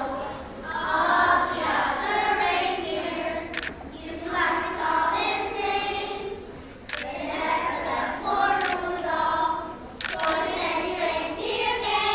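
A group of children singing together in phrases of a few seconds with short breaks between them. A few sharp clicks sound over the singing.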